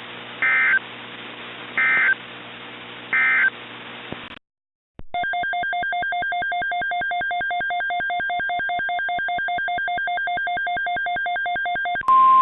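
Emergency Alert System end-of-message: three short bursts of SAME data tones about a second apart, closing the weather warning. After a brief silence comes a rapid pulsed electronic beeping for about seven seconds. A steady alert tone starts just at the end: the weather radio warning tone that opens the next message.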